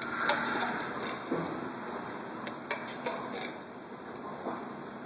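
A spoon clinking and scraping inside a tin can of beef stew as it is eaten straight from the can, with a few sharp clicks scattered among quieter eating sounds.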